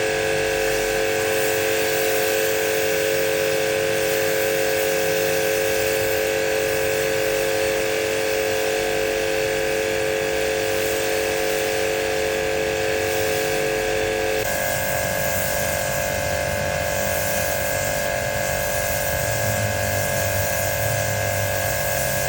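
High-pressure washer's motor and pump running steadily with a whining hum. Its tone shifts about two-thirds of the way through.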